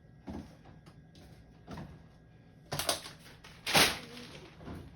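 Five or so short knocks and clatters of food containers and fridge parts being handled while a fridge is cleared out, the loudest about three and a half seconds in.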